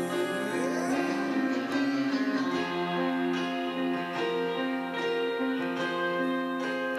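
Guitar music: ringing held notes, with a note sliding upward about a second in.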